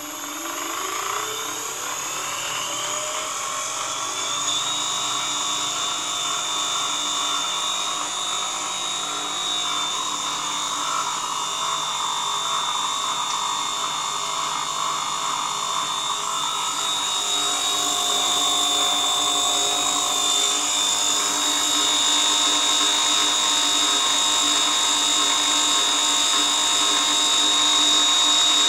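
Electric motor in a converted Babetta moped engine spinning up with a rising whine over the first few seconds, then running at steady speed with a high-pitched whine. It grows slightly louder toward the end.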